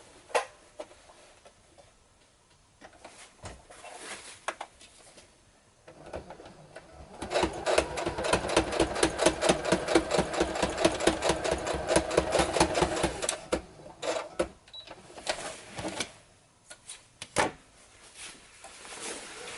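Sewing machine running a straight line of stitches across two seams, a fast even run of needle strokes for about seven seconds in the middle, with scattered clicks of handling before and after.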